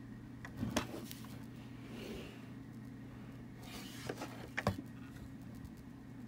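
Handling noise from a 1:24 diecast car being picked up and turned over on a mat: a couple of light clicks and soft rubbing, over a steady low hum.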